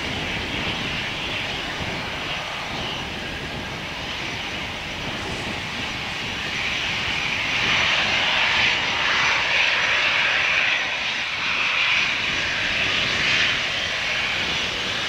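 Airbus A320-214's CFM56 jet engines running at low power as the airliner taxis past, a steady jet hiss and whine that grows louder in the second half as the aircraft swings round closest.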